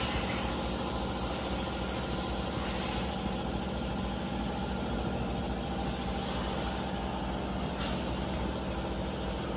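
CNC oscillating knife cutting machine running: a steady machine hum with bursts of hissing, one lasting about the first three seconds, another around six seconds in and a short one near eight seconds.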